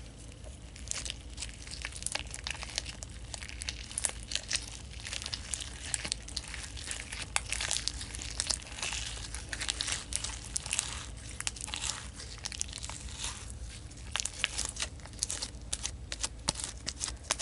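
Sticky green glue slime being squeezed and kneaded by hand, giving a continuous irregular run of small wet crackles and pops as it stretches and sticks to the fingers.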